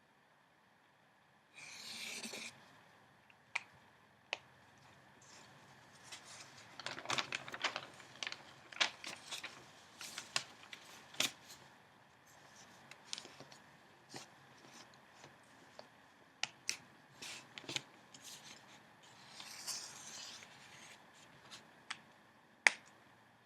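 Newspaper flier paper being handled: a rustling swish of pages turning about two seconds in and again near the end, with many short, crisp paper crackles and taps in between.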